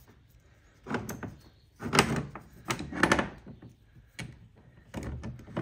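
A few sharp knocks and clicks of tools and parts being handled, spaced about a second apart, with a softer one near the end.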